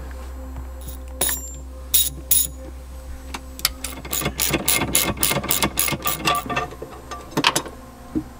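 A few sharp knocks, then a socket ratchet clicking in a quick run of strokes, about four clicks a second, as a bolt is turned, with a last couple of clicks near the end.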